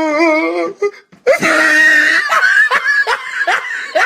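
Meme sound effect: a wavering, warbling voice cuts off, then after a brief gap a loud burst opens a person's laughter, rapid "ha" bursts rising in pitch at about four a second.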